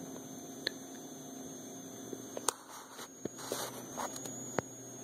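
Steady electrical mains hum with a thin high steady whine over it, and a few short faint clicks and rustles of handling as the recording device is moved.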